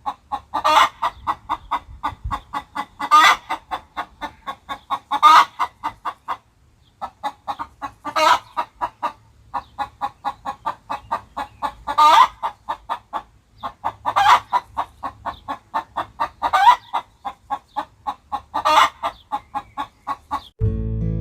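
Cartoon chicken sound effect: a fast run of clucks with a louder squawk roughly every two seconds and a brief pause partway through. Strummed acoustic guitar music comes in just before the end.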